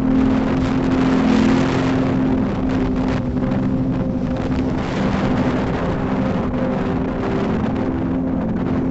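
A vehicle running down a road, with wind rushing over the microphone, loudest about a second in, over a steady low drone.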